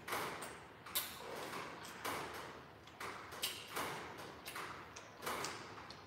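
Close-up eating sounds from a man eating noodle soup: repeated noisy blowing, slurping and chewing, a burst about every second.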